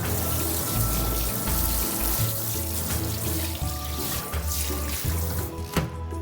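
Tap water running steadily into a kitchen sink, under background music.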